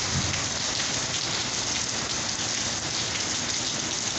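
Heavy rain pouring steadily onto asphalt and a concrete walkway, an even hiss of countless drops.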